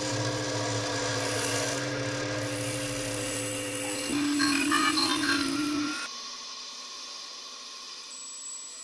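Dark-ambient electronic noise: a dense, scraping drone over steady held tones, with a pulsing low hum beneath. About four seconds in it swells into a louder buzz with higher tones, then drops to a quieter hiss about six seconds in.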